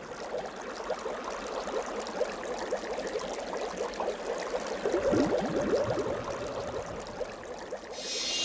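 Babbling, gurgling water, like a small stream, in a busy run of short bubbling sounds. A bell-like chime comes in near the end.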